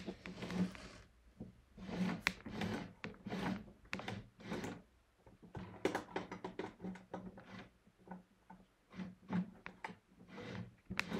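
Brother M343D overlocker being turned slowly by hand at its handwheel with the motor off: irregular soft clicks and knocks from the stitch mechanism as the needles cycle. The turning checks whether the new threading is forming stitches.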